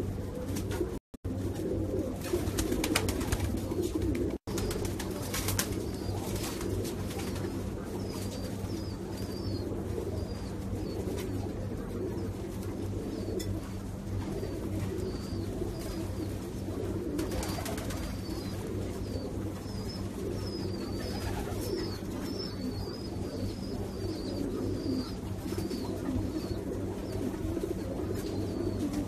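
Domestic pigeons cooing continuously in a loft, over a steady low hum. Faint, short high chirps come in from about eight seconds on, and the sound cuts out twice, very briefly, in the first few seconds.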